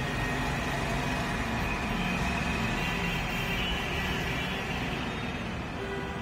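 Steady roadside traffic rumble from passing vehicles, mixed with the hiss of pua pitha batter frying in a wok of hot oil.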